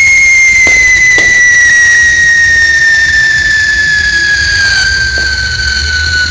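Small ground fountain firework spraying sparks and giving a loud, steady whistle that slides slowly down in pitch, with a few faint crackles.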